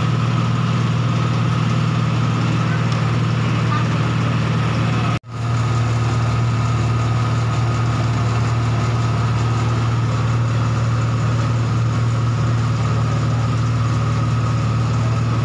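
Steady motor drone of a market coconut-grating and coconut-milk-pressing machine running continuously. The sound breaks off for an instant about five seconds in.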